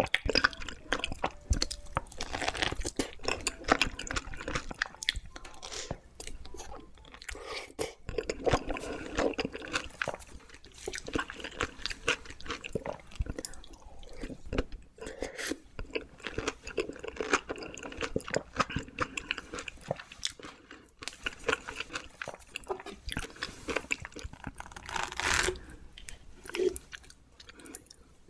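Close-miked biting and chewing of a chilled peach stuffed with whipped cream and Nutella: juicy chewing with many small, irregular crunchy clicks.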